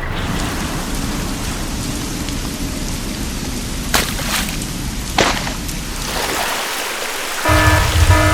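Steady heavy rain with two sharp thunder cracks about a second apart, midway through. Near the end, music with a heavy bass beat comes in.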